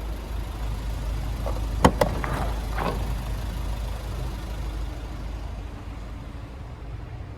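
Diesel engine of a Renault Master van idling with a steady low rumble, with two sharp clicks in quick succession about two seconds in and a few lighter knocks around them.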